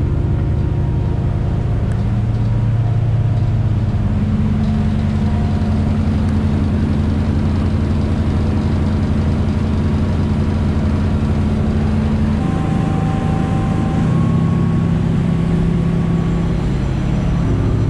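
Volvo Penta diesel sterndrive engine of a motor boat running steadily at cruising revs under way on the plane, heard aboard together with wind and rushing water. The engine note rises a little a few seconds in and drops to a lower pitch about two-thirds of the way through.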